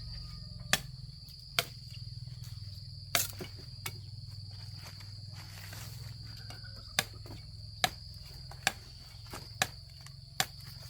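Insects, crickets or cicadas, giving a steady high-pitched chirring. Over it come about nine sharp knocks, spaced roughly a second apart.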